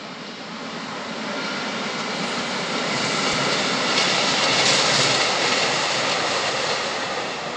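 Freight train hauled by a Bombardier Traxx electric locomotive passing at speed with flat wagons carrying tank containers. The rush of wheels on rail builds over the first few seconds, is loudest about halfway through, then cuts off suddenly near the end.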